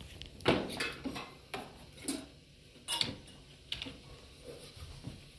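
A string of light knocks and clinks of household objects, coming every half second to second, the loudest about half a second in.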